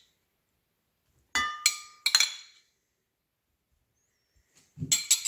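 Metal spoon clinking against white ceramic dishes as sweet corn is spooned from one into the other: three quick ringing clinks about a second and a half in, then a couple of sharper taps near the end.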